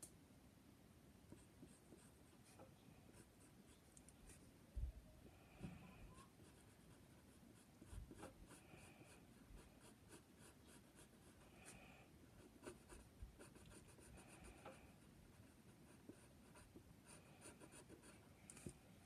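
Faint scratching of a pencil drawing on a sheet of paper in short strokes, with soft low knocks about five and eight seconds in.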